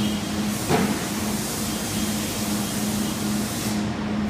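A steady mechanical hum and hiss, the hum pulsing a few times a second, with one sharp knock under a second in as the clear acrylic guard panels are lifted off the merchandiser.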